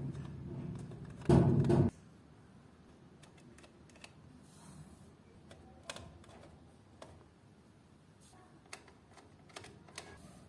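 Scattered light clicks and taps, as of small metal parts being handled and fitted at a door lock, with one louder short sound near the start.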